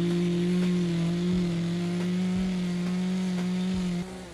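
Two-stroke Echo carving chainsaw held at high throttle, cutting into the wood, one steady high engine note. Just before the end the throttle eases off and the engine note drops.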